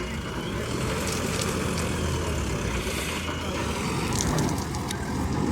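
JCB 3DX backhoe loader's diesel engine running steadily, with a few light clicks about four seconds in.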